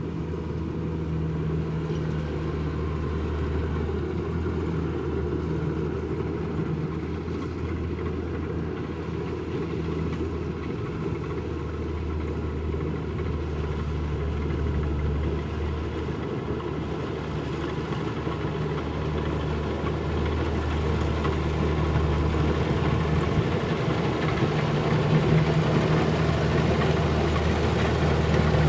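Kubota rice combine harvester's diesel engine running steadily with a low hum and machine noise, growing louder over the last several seconds.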